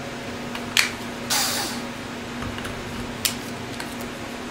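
A drill's chuck being tightened by hand: two sharp clicks and a short rasping burst about a second and a half in, over the steady low hum of the shop heater.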